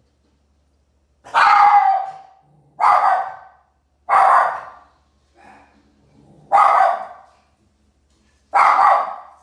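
A small dog barking: five loud, separate barks spaced about one and a half to two seconds apart.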